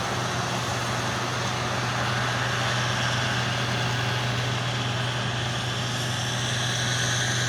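Combine harvester running steadily at harvest: a constant low engine hum with a broad hiss over it, unchanging throughout.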